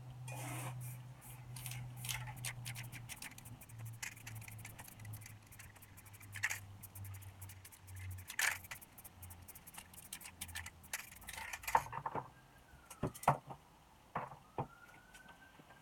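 Irregular clicks, rattles and scrapes of metal spray-paint cans and a paper stencil being handled on a wooden board, with a faint low hum underneath for the first half.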